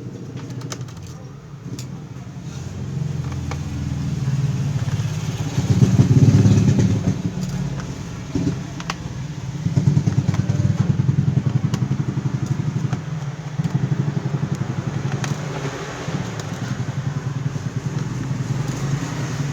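A small motorcycle engine running and passing by, swelling to its loudest about six seconds in and again from about ten seconds, with a few light clicks over it.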